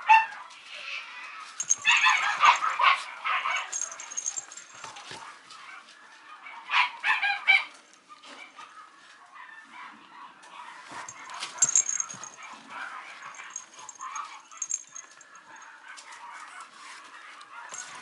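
Mame shiba puppy yapping in short bursts, loudest about two seconds in and again around seven seconds in, with scattered clicks and scuffling between.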